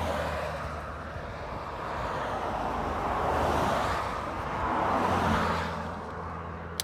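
Road traffic passing on a highway: vehicles go by one after another, each a whoosh of tyre and engine noise that swells and fades, over a low steady rumble. A single sharp click at the very end.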